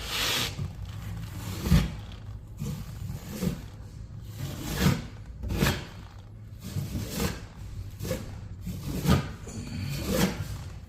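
Drywall taping knife scraping and smoothing joint compound over a patch on a wall, in a series of irregular strokes, roughly one a second.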